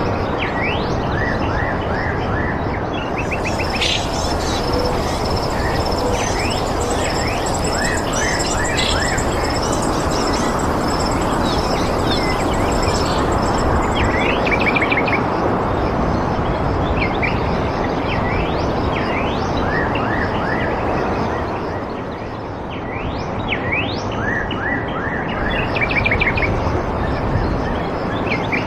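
Small birds chirping and twittering again and again over a steady rushing background noise. A high, thin steady whine sits above them from about three seconds in until about thirteen seconds.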